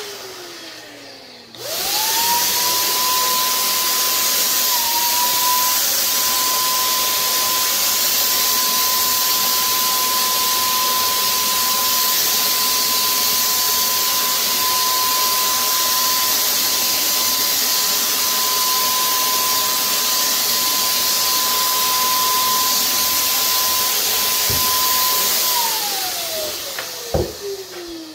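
Handheld electric paint sprayer spinning up about two seconds in, then running at a steady whine over loud rushing air while spraying paint. Near the end its motor winds down with a falling whine, followed by a click.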